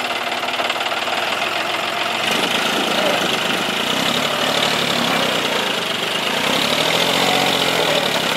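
John Deere 5045D tractor's three-cylinder diesel engine running steadily, a little louder and fuller from about two seconds in.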